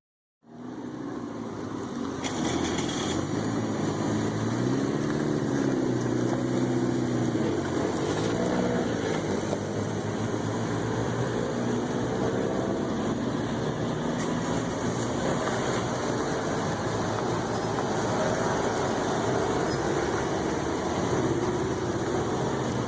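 Small car engines running as cars drive past. The engine pitch rises and falls a few times about four to nine seconds in, as a car revs and pulls away, then settles into a steady drone.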